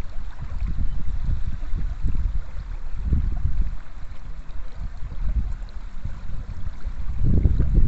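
A river flowing past the bank, with a low, uneven rumble that swells about three seconds in and again near the end.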